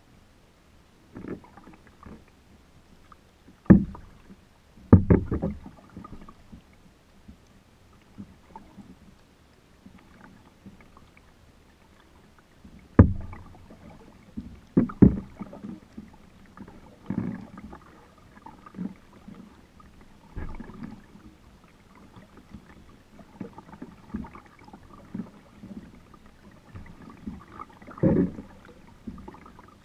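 Kayak being paddled: paddle strokes splashing and water slapping and gurgling against the hull, with sharp knocks and thumps now and then. The loudest come about 4, 5, 13 and 15 seconds in.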